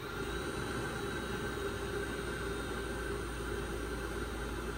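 Navien NR-180 tankless water heater, just powered on after a flame rod replacement, with its combustion blower fan giving a steady whirring hum. The hum steps up slightly at the very start, with a low rumble coming in.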